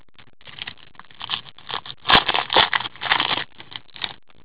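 Foil Panini Select hockey card packs crinkling and rustling as they are handled and one is picked up from a pile, in a run of irregular crackly bursts that is loudest a little past the middle.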